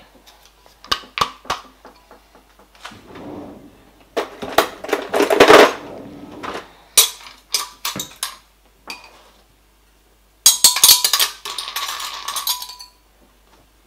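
Kitchen handling noises: a blender jug knocked, tapped and set down, with clinks and a rustling of plastic near the end.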